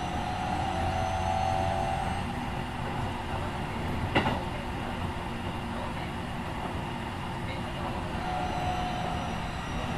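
Keikyu 1500 series electric train heard from inside a motor car while running, with rail and wheel rumble and the faint whine of its Mitsubishi IGBT-VVVF traction equipment. A single sharp clank comes about four seconds in.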